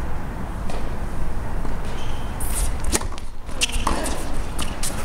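Tennis ball being struck by rackets during a rally on a hard court: several sharp pops, the clearest about three seconds in and near the end, over a steady low rumble.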